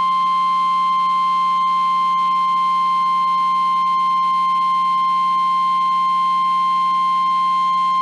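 NOAA Weather Radio warning alarm tone: a single steady 1050 Hz tone held unbroken, the signal that a warning message is about to follow.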